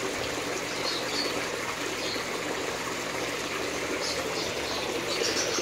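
Steady splashing and trickling of water from a garden fish pond's fountain outlet pouring into the pond.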